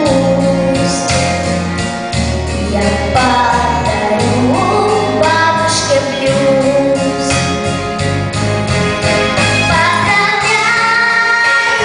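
A girl or woman singing a blues song over instrumental accompaniment with a bass line and a steady beat.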